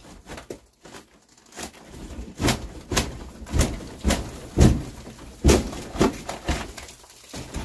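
Repeated knocks and cracks of a long-handled tool striking and prying at a plywood ceiling panel during demolition, about two blows a second starting a second and a half in.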